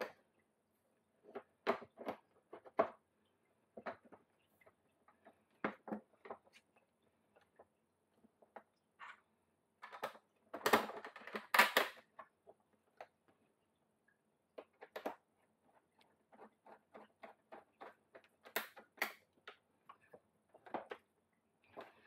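Scattered clicks, taps and light knocks of a Samsung dishwasher door's stainless steel inner panel and plastic top trim being handled and lined back up. A denser run of clatter comes about ten to twelve seconds in.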